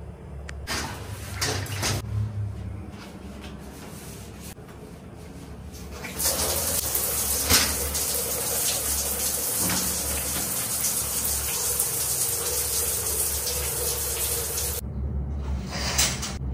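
A shower running over a bathtub: a steady hiss of spraying water that starts about six seconds in and stops suddenly near the end. A few brief rustles come before it.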